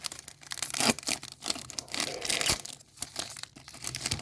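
Wrapper of a Topps Chrome Star Wars Galaxy trading card pack crinkling and tearing as it is opened, a string of short rustles and crackles.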